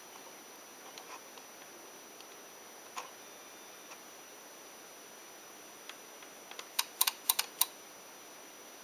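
Faint steady hiss with a single sharp click about three seconds in, then a quick run of about six sharp clicks within under a second near the end.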